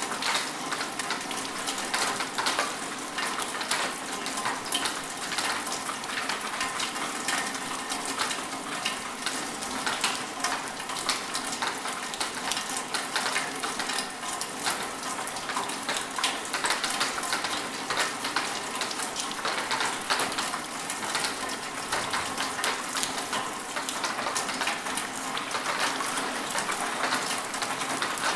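Steady rain falling, a dense patter of many small drops hitting surfaces.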